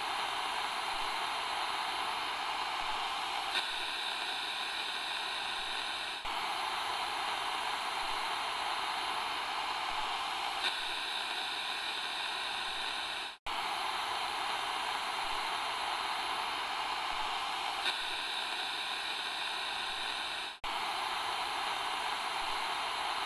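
Steady hiss like static or white noise, with faint higher tones coming and going. It cuts out for an instant about thirteen seconds in.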